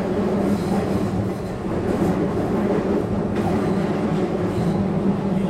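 Shizuoka Railway 1000 series electric train running, heard from inside near the cab: a steady low drone with a couple of faint knocks from the wheels on the track.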